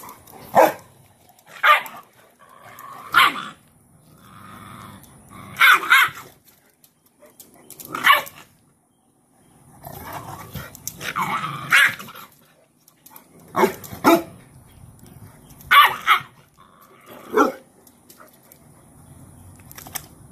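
Cane Corso puppy barking at its mother: about ten short, sharp barks spaced a second or two apart with a few longer gaps, and one longer drawn-out call a little past halfway.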